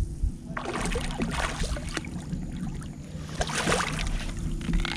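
Wind rumbling on an action camera's microphone on a kayak, with several bursts of hissing noise each lasting about a second.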